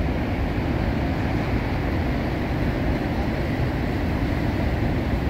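Niagara's Horseshoe Falls and the rapids above it: water rushing over the brink, a steady deep rumble.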